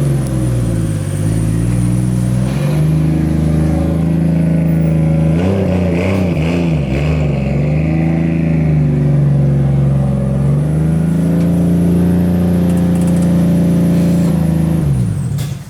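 Car engine running at steady revs, its pitch dipping and rising as the throttle changes, then cut off suddenly near the end.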